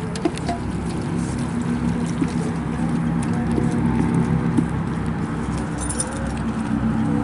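Wooden spoon stirring and scraping ground beef in a speckled enamel stockpot, giving scattered small clicks and scrapes, over a steady low engine-like hum.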